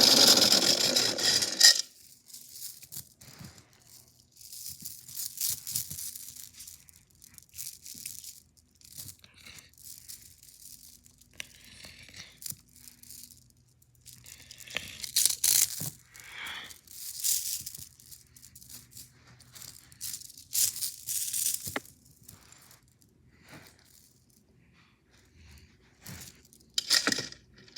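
Toy chains rattling and clinking in irregular bursts as they are handled and pushed into a toy washing machine. A loud sound in the first couple of seconds cuts off suddenly.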